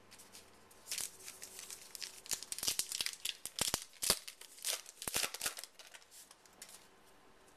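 Plastic-foil wrapper of a 2011 Topps Lineage baseball card pack being torn open and crinkled in the hands. Sharp, irregular crackles start about a second in and die away near the end.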